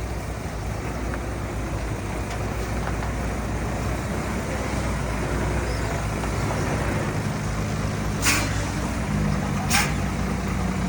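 Heavy diesel earthmoving machinery running steadily at a low drone. Near the end come two short hisses about a second and a half apart.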